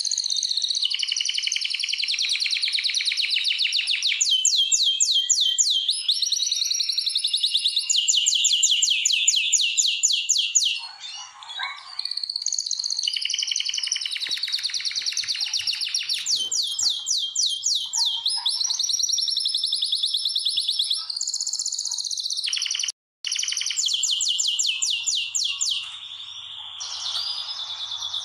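Male domestic canary, a red-factor bird in breeding condition, singing a long continuous song of fast trills and rolling phrases, the kind of song used to bring hens into breeding. There is a short pause about eleven seconds in and a brief sudden cut-out later on.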